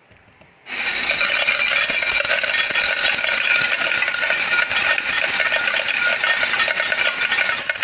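Coin changer paying out a long, continuous stream of coins into its tray, a dense metallic clatter that starts under a second in and keeps going for about seven seconds: a 1000 NT dollar bill being changed into coins.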